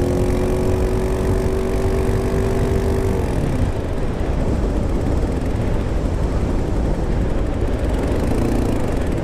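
Honda CBR600F4i inline-four motorcycle engine running badly, knocking and misfiring and losing power, a sign of serious internal damage which the owner thinks has blown the engine. It holds a steady note for about three seconds, then turns ragged.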